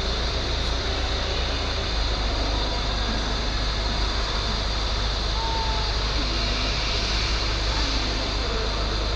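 Steady outdoor background noise: a continuous low rumble and hiss with faint distant voices.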